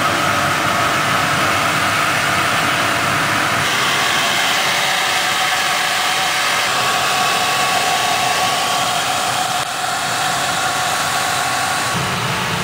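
Ladle preheater's high-pressure gas burner firing with its combustion-air blower running: a loud, steady noise with a faint whine.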